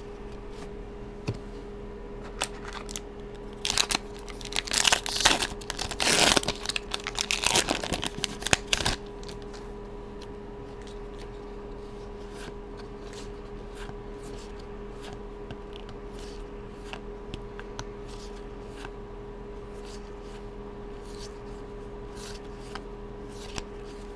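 Foil Magic: The Gathering booster pack wrapper being torn open and crinkled, loudest for about five seconds starting some four seconds in. After that come soft, scattered clicks of the trading cards being handled and slid past one another.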